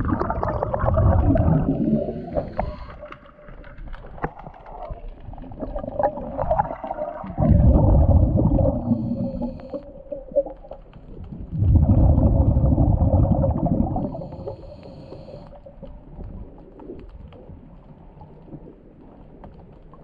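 Underwater sound picked up by a submerged camera: water moving around the camera, heard as muffled rumbling in three loud swells (at the start, about seven seconds in, and about twelve seconds in), over a steady low hum.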